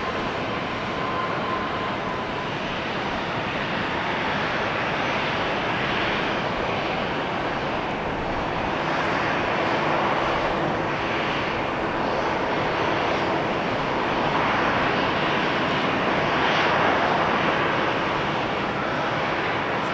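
Jet engines of an Airbus A320 airliner running, a steady rushing noise with slow swells in strength. A faint low hum joins about halfway through.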